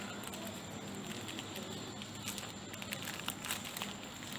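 Faint rustling and scattered small clicks of fingers handling and tearing open foil instant-noodle seasoning sachets.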